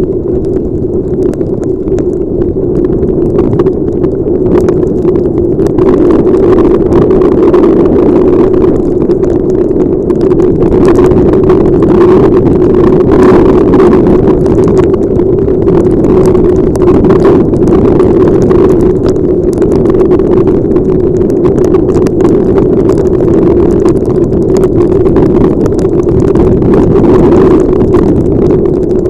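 Steady, muffled rush of wind and motorcycle riding noise picked up by a helmet-mounted camera's microphone in heavy rain, with many small taps throughout.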